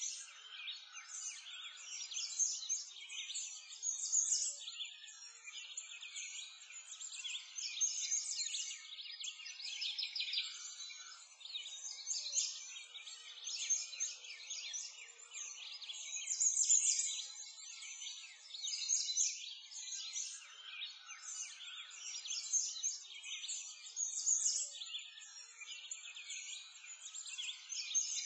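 A dense chorus of many small birds chirping and singing at once, with no low sounds beneath it.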